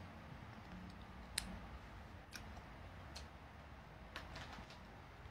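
A few faint, scattered clicks and taps as small objects are handled, over a low steady room hum.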